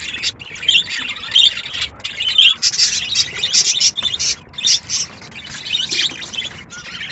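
Budgerigars chattering: a busy, unbroken stream of high chirps and squawks, with a couple of short lulls in the second half.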